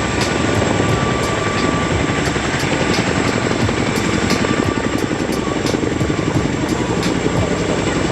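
Boeing CH-47 Chinook tandem-rotor helicopter flying low overhead, a loud, steady rotor beat with engine noise.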